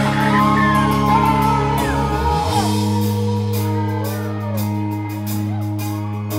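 Live rock band playing: electric guitars over sustained bass notes and drums, with the chord changing about two and a half seconds in.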